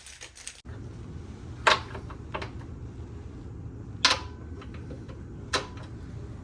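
Four or so sharp metallic clanks and knocks from tools and parts being handled during work on a car, over a steady low hum.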